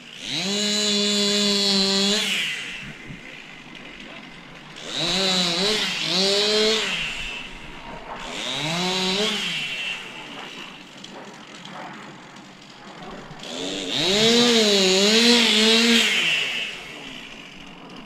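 Chainsaw cutting through a large tree branch, heard from about 20 metres away. It revs up four times under load, the pitch sagging and rising as the chain bites, and drops back to a quiet idle between cuts.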